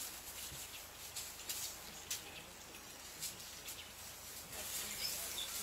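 Quiet outdoor bush ambience: a steady faint hiss with scattered short, high-pitched ticks and a faint chirp or two near the end.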